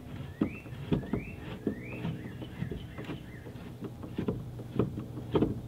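Light clicks and taps of a screwdriver and nut-and-screw hardware as a canoe's wooden thwart is unbolted, a few sharper knocks near the end. A bird sings short rising whistled notes behind it.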